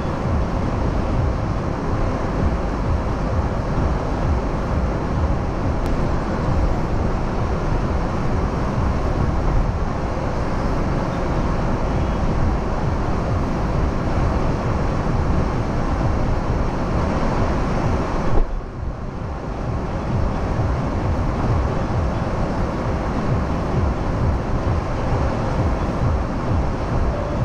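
Steady street traffic noise in a busy bazaar: a continuous low rumble of vehicles with a faint steady hum running through it. About two-thirds of the way in there is a short knock and the sound briefly dips.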